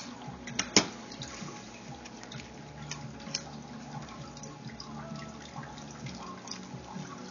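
Bubble wrap and plastic bendy straws crinkling and clicking as they are handled, with two sharp snaps within the first second, over a low steady hum.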